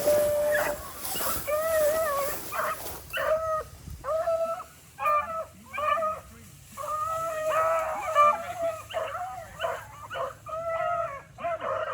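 Rabbit hounds baying on a rabbit's scent, a steady run of repeated drawn-out bawls and barks, some of them overlapping.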